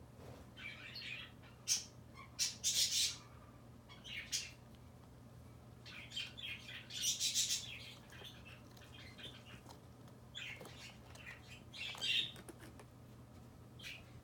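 Kittens playing and wrestling, their claws scratching and scrabbling on sisal rope and carpet in irregular short bursts, with the loudest about two, three, seven and twelve seconds in.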